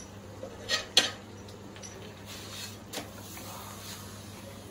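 A wooden spatula stirring thick mutter paneer curry in a ceramic-coated pan, with a few sharp knocks of the spatula on the pan: two close together about a second in and one near three seconds.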